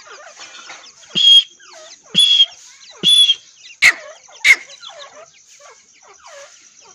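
Partridge (teetar) hen with small chicks: three loud, harsh calls about a second apart, then two sharp clicks, with soft short chirps throughout.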